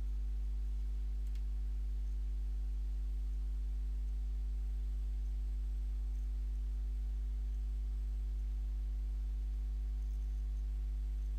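Steady low electrical mains hum with a stack of evenly spaced overtones; nothing else is heard.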